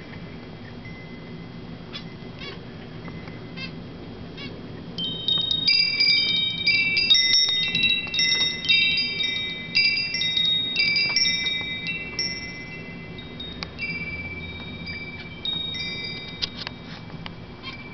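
Metal-tube wind chime rung by a rabbit tugging on its pull string: a few light clinks, then about five seconds in the tubes start ringing again and again in overlapping tones, thinning out to occasional rings over the last several seconds.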